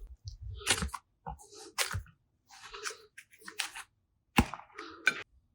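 Slime being squeezed and pressed by hand, giving an irregular run of short crackly, sticky crunches and pops that stops just before the end.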